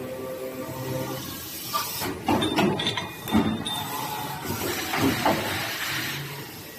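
Cutting machine at work: irregular hissing and knocks, with a brief high whine about three seconds in, after background music fades out in the first second.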